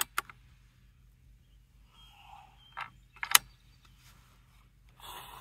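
Sharp metallic clicks and clacks from the side-lever action of a Benjamin Bulldog .457 PCP bullpup air rifle as it is cycled and a slug is loaded between shots. There are two quick clicks at the start, one a little before three seconds, and a loudest tight cluster of clacks about three seconds in.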